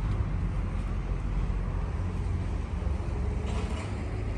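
Steady low outdoor rumble with no distinct event, the kind of background that traffic and wind on the microphone make, with a couple of faint ticks near the end.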